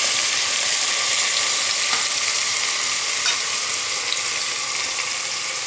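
Lamb pieces sizzling steadily in hot oil, their water cooked off and the meat starting to brown, with a few faint clicks.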